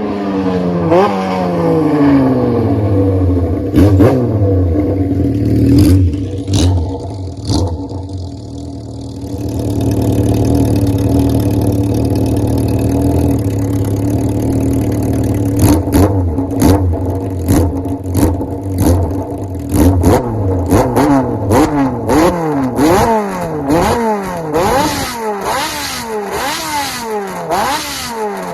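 Kawasaki Z400FX inline-four through a Kamikaze four-into-one collector exhaust and silencer: the revs fall back to a steady idle, then from about halfway on the throttle is blipped over and over, the pitch rising and falling quickly, with sharp cracks among the revs.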